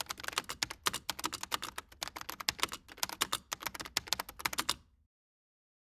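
Computer-keyboard typing sound effect: fast, uneven key clicks that stop abruptly about five seconds in.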